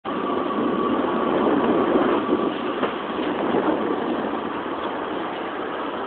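Steady outdoor traffic noise of vehicle engines running, with a faint steady whine over the first couple of seconds.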